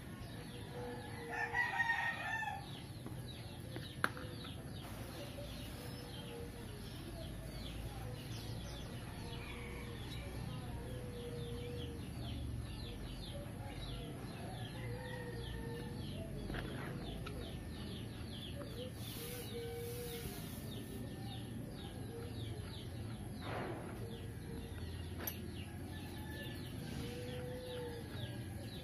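Background bird calls: one louder call about two seconds in, then short calls every few seconds, with a single sharp click about four seconds in.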